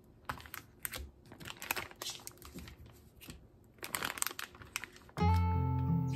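Plastic food packages crinkling and rustling in short irregular bursts as they are handled and set down. About five seconds in, louder acoustic guitar music starts.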